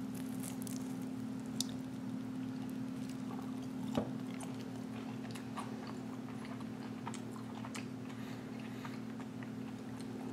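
A person chewing a bite of crispy, sauce-coated fried chicken tender, with small crunches and wet mouth clicks and one sharper click about four seconds in, over a steady low hum.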